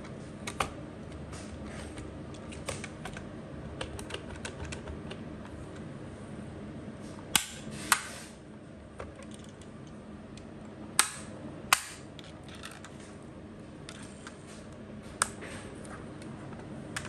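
Die-cast 1:24 Bentley Mulsanne model car being handled, its small doors clicking shut: sharp clicks, the loudest in two pairs about half a second apart, with lighter ticks and taps between.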